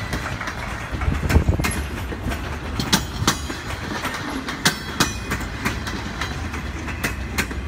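Empty railroad flatcars rolling past on jointed rail, their wheels clacking over the rail joints. The clacks come as sharp double clicks every second or two over a steady low rumble.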